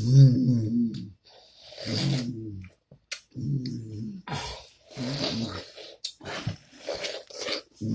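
Wet slurping and chomping of juicy watermelon flesh, eaten face-first without hands. Several short, muffled, growl-like grunts from the eaters, each under a second long, sound between the bites.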